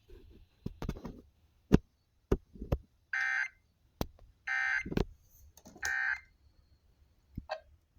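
Emergency Alert System end-of-message tones: three identical short bursts of digital data screech, a little over a second apart, marking the end of the alert broadcast. Scattered sharp clicks and knocks sound around them.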